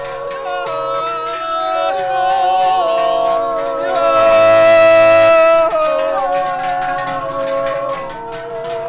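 Several herdsmen's voices yodeling together in slow, wordless harmony, holding long notes; the loudest is a long high note held about halfway through.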